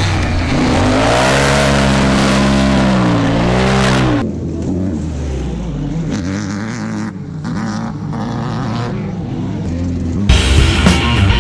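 Off-road race car engine revving hard, its pitch rising and falling, then quieter and duller from about four seconds in. Rock music with a steady beat comes in near the end.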